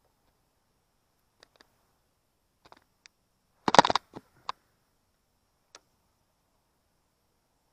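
Scattered light clicks and knocks, with a loud, quick cluster of knocks a little before halfway.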